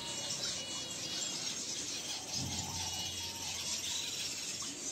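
Small aviary finches twittering and singing, in quick high trills of short repeated notes.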